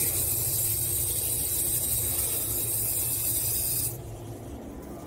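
Automatic sensor faucet running a spray of water onto a hand, a steady hiss that cuts off suddenly about four seconds in.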